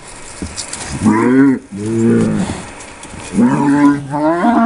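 Heifers mooing: three long, loud calls, the last lasting about a second and a half.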